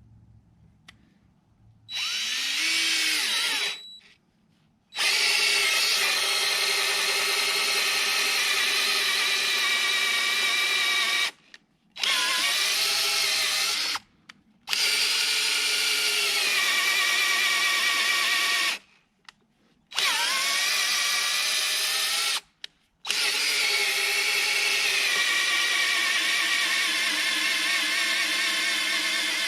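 Power drill running in about six bursts of a few seconds each with short stops between, a steady high whine that dips briefly in pitch as some bursts begin.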